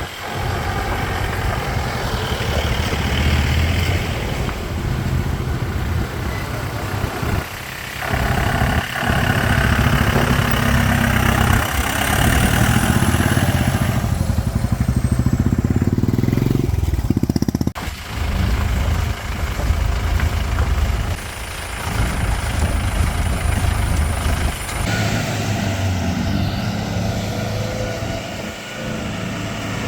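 Mahindra 4x4's DI turbo diesel engine running, its note rising and falling with the throttle, with brief dips about 8 and 18 seconds in.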